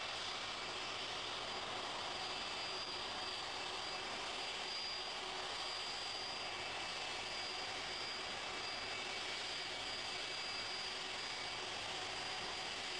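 Boeing 747's jet engines running as the airliner taxis: a steady rushing jet noise with a thin high whine held on one pitch.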